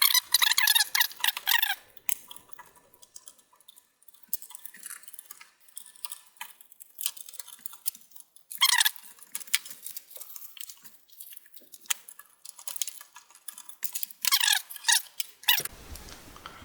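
Screwdriver backing out the small screws of a power supply fan: bursts of fine metallic clicking and squeaking at the start, about nine seconds in and about fourteen seconds in, with light scattered clicks between. A short, fuller handling noise comes near the end.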